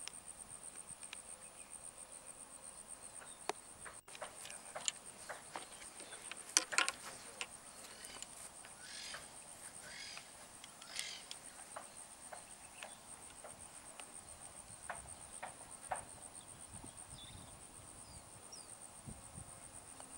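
Steady, high-pitched insect chirring, pulsing rapidly without a break. Scattered faint clicks and taps, with a sharper knock about seven seconds in.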